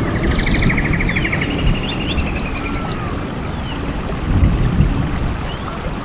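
Steady rushing of falling water with birds calling over it: a fast trill in the first second and a half, then a quick run of short repeated chirping notes around the middle, which comes back near the end.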